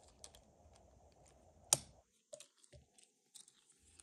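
Plastic LEGO Technic axle parts clicking and rattling as the assembly is handled, with one sharp, much louder click a little before halfway.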